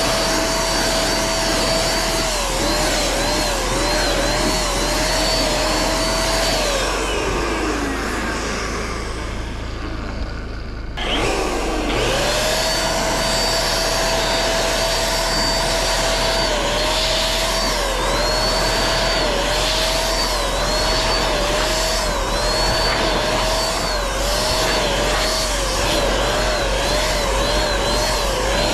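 Small hand-held electric paint sprayer (Penkiya-kun) running with a steady high whine while spraying paint, its pitch dipping briefly over and over in quick runs. About seven seconds in it is switched off and winds down to a stop. A few seconds later it starts again and spins back up to speed, then keeps whining with more runs of dips.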